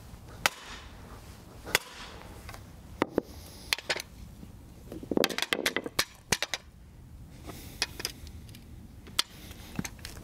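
A sledgehammer tapping a timber driving block set in a steel metpost fence spike: two sharp strikes about a second and a quarter apart near the start, then scattered lighter clicks and knocks as a spirit level is set against the post.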